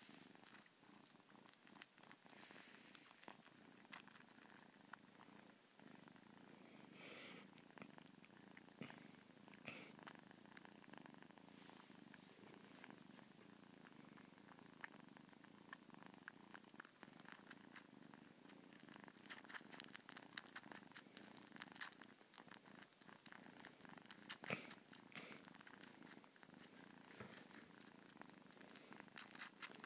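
Kitten purring faintly and steadily while suckling, with scattered small clicks.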